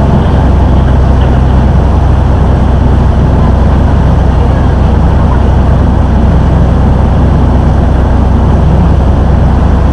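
River tour boat's engine running steadily with a low, even hum, and water rushing along the hull.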